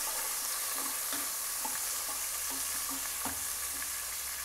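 Sliced onions and whole spices frying in ghee and oil in an aluminium pot, with a steady sizzle, while a wooden spatula stirs them and scrapes and taps against the pan. The onions are being browned.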